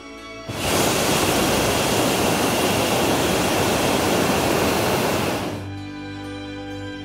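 Hot-air balloon's propane burner firing in one loud, even rushing blast of about five seconds, starting half a second in and cutting off near the end, then background music.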